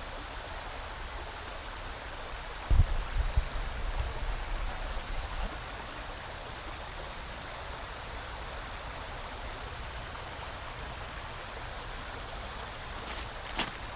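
Creek water running over a shallow, rocky bed: a steady rushing hiss. About three seconds in come a couple of seconds of low thumps, and near the end a few brief clicks.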